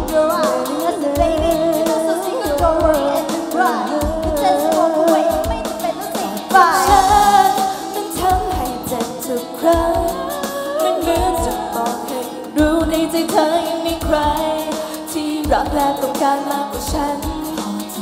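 Women singing a Thai pop song into microphones over pop music with a steady drum beat.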